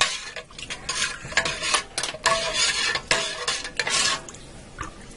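Metal spoon stirring broth in a stainless steel stovetop pressure cooker pot, scraping and clinking against the sides in an irregular run that dies down about four seconds in.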